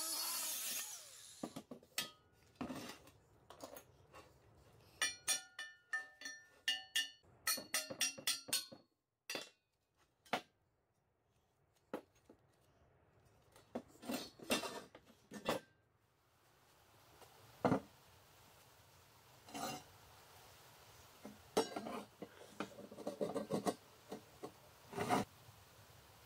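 Steel car wheels being handled and set down on a wooden workbench: a series of separate clanks and knocks, some ringing briefly, in clusters with quiet gaps between.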